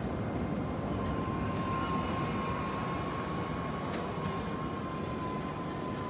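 Steady distant vehicle or machinery rumble outdoors, with a steady high whine joining about a second in.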